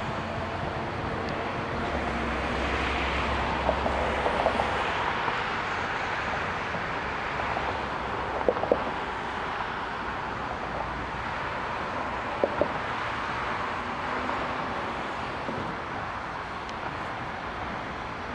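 Jet engines of a taxiing four-engine Airbus A340-600 airliner, heard as a steady rushing noise that swells slightly a few seconds in. A few short clicks are scattered through it.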